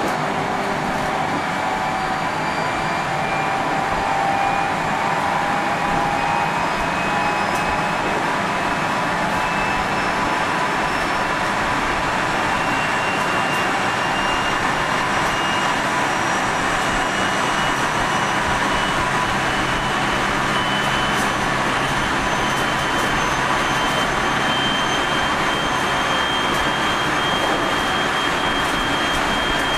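Running noise inside a JR 373 series electric motor car (KuMoHa 373-11, MT68 traction motors), with the traction motor and gear whine rising slowly and steadily in pitch as the train gains speed. This car is known for an unusually strong abnormal running noise.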